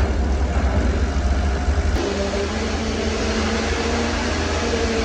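Diesel engine of heavy construction machinery running steadily. About two seconds in, the sound changes abruptly: the deep low end drops away and a steadier hum takes over.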